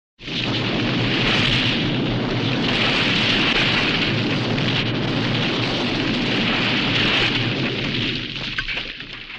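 Avalanche sound effect: a loud, sustained rushing rumble of sliding mass that starts abruptly. It thins out with a few scattered knocks near the end before stopping.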